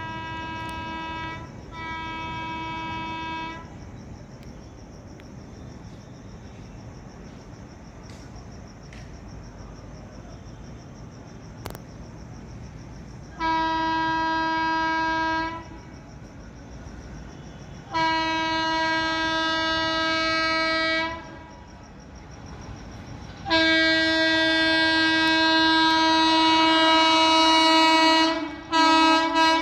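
WAP-4 electric locomotive's horn sounding a single steady note in blasts: two short blasts, a pause of about ten seconds, then three longer blasts that get louder each time, the last held about five seconds before breaking up near the end.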